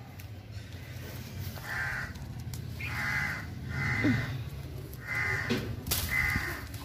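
A bird calling five times, short harsh calls about a second apart.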